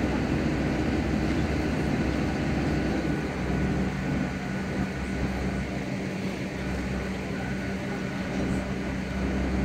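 Heavy construction machinery's diesel engine running with a steady low drone; its note shifts and settles into a steadier hum about three and a half seconds in.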